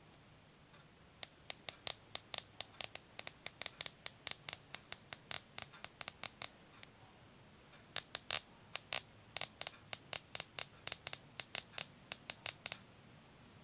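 Plastic cable tie strap being pulled through its ratchet head, giving sharp clicks at about four or five a second as each tooth passes the pawl. The clicks come in two runs of about five seconds, with a short pause between them.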